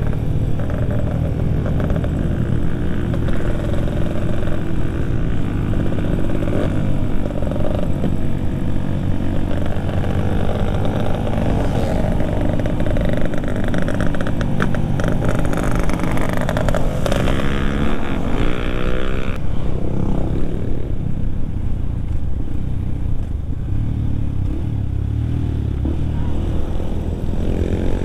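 Yamaha WR155R's single-cylinder four-stroke engine running while the bike is ridden, its pitch rising and falling several times with the throttle and gear changes.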